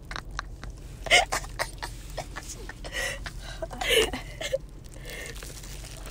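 Close-up mouth and eating sounds from a phone voice recording: rapid lip smacks and chewing clicks, broken by two short, louder throat or voice noises about a second in and around four seconds in.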